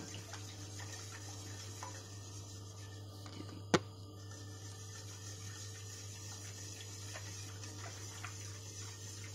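Wire whisk stirring a liquid milk pudding mixture in a stainless steel pot: a soft, steady swishing of liquid with faint taps of the whisk, and one sharp click a little before the middle.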